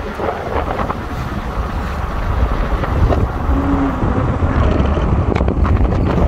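Wind buffeting the microphone: a loud, steady low rumble with a hiss over it, growing a little stronger about halfway through.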